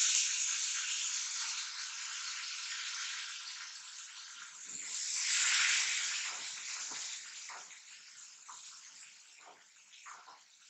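Chopped tomatoes sizzling in hot oil in a kadai with shallots and tempering spices. It is loud at first, swells again about five seconds in as the pan is stirred, then dies down to faint crackles near the end.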